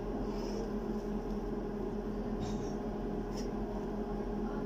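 Knife and hands handling sliced cucumber strips on a wooden cutting board: a few faint taps and scrapes over a steady low hum.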